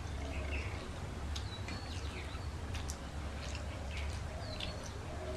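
Two people eating rice and fish curry by hand: wet chewing and lip-smacking clicks, with a few short squeaks, over a steady low hum.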